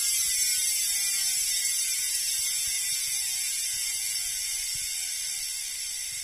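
Industry 9 Hydra rear hub (690 points of engagement) freewheeling as the wheel is spun by hand with the cassette held still: a loud, high-pitched, raucous ratcheting buzz from the freehub that slowly drops in pitch and fades as the wheel coasts down.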